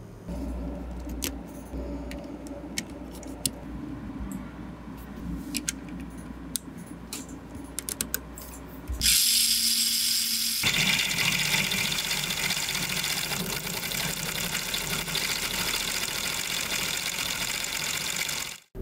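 Electric motor and plastic gear train of a LEGO Technic drill machine running, boring a thin bit into a pear. It starts about nine seconds in, loudest at first, then keeps up a steady whir until it cuts off near the end. Before it, a few sharp clicks over a low hum.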